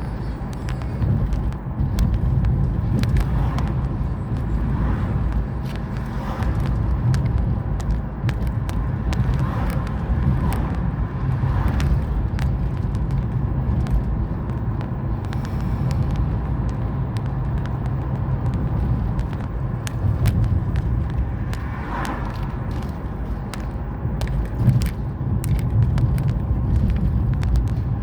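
A car being driven: a steady low rumble of engine and road noise, with frequent small clicks and knocks throughout.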